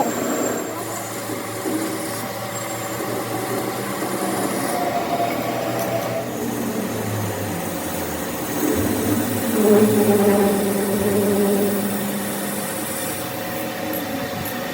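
Workshop machinery running steadily, with a low hum and shifting squealing tones that swell about two-thirds of the way through.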